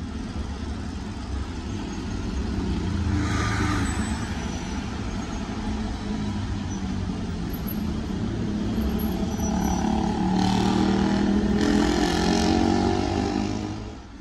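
Dense city road traffic: cars, buses and motorcycles running in a steady rumble. A heavy engine grows louder from about ten seconds in, with short hisses about three seconds in and twice around eleven to twelve seconds, before the sound drops away near the end.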